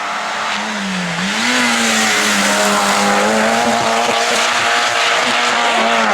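Rally car engine at high revs, getting louder as the car comes closer. The revs dip briefly about a second in, then climb and hold high.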